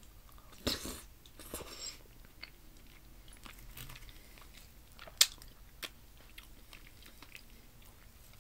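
Close-up mouth sounds of chewing a piece of fufu dipped in peanut chicken soup: wet chewing with a few sharp smacks and clicks, the loudest about five seconds in.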